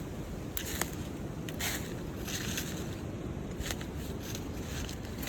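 Footsteps rustling and crunching through dry leaf litter, a short crunch every half second to a second, over a steady low rumble of wind buffeting the microphone.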